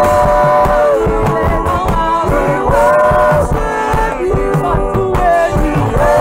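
Gospel praise song: singers holding long, gliding sung lines over a band with a steady beat.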